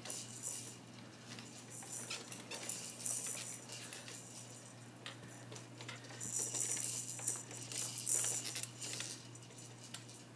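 Faint rattling and rustling that comes and goes twice, over a steady low hum.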